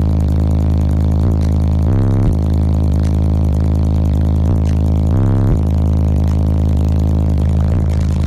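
Car-audio subwoofers in a walled Jeep, run on three 3,500-watt amplifiers, playing loud, heavy low bass notes, the note changing briefly about every three seconds.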